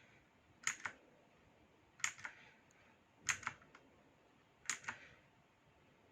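Mechanical keyboard keys pressed four times, about once every 1.3 s, each press a quick double or triple click: the FN and Insert keys being pressed together to cycle the backlight colour.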